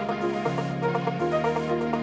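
Melodic electronic music: a sustained synth bass line that changes note about a second in, under a pattern of short plucked synth notes.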